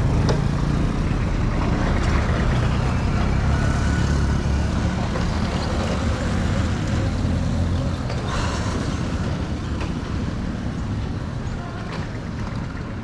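Motor vehicle passing close on the road, its engine rumble loudest a few seconds in and then slowly fading.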